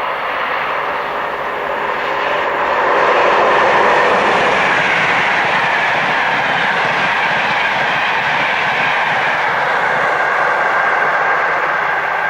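Electric locomotive-hauled train passing at speed, wheels on rail making a loud steady rush that builds to its peak about three to four seconds in and holds as the train goes by, with some clickety-clack over the rail joints.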